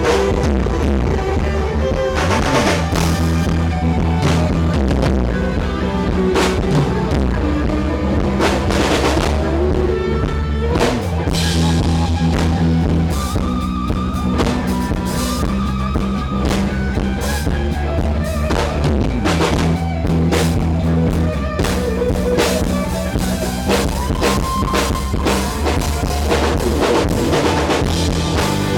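A rock band playing live: a drum kit with cymbal crashes over steady bass notes and guitar.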